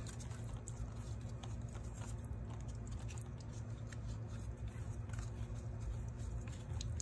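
Gloved hands handling a small threaded metal pipe fitting assembly: scattered light rustles, ticks and clicks, over a steady low hum.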